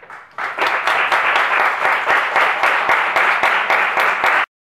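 Audience applauding: dense clapping that swells in about half a second in and is cut off suddenly near the end.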